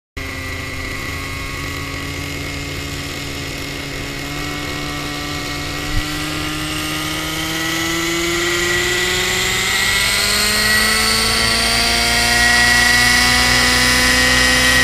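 Align T-Rex 700N RC helicopter's nitro glow engine and rotor head spooling up on the pad, the pitch rising steadily and the sound growing louder. One sharp click about six seconds in.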